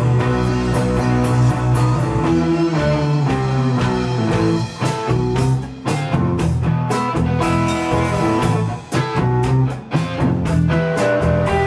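A band playing live: electric guitars over bass and drum kit, with held guitar notes and steady drum hits.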